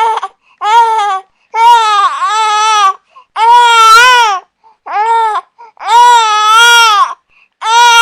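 Infant crying hard: a string of about six loud wails, each half a second to a second and a half long with a rising-then-falling pitch, broken by quick gasping pauses for breath.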